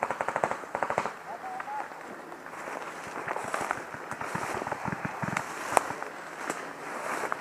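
Paintball markers firing: a rapid burst of shots in the first second, then scattered single pops, the sharpest near six seconds in.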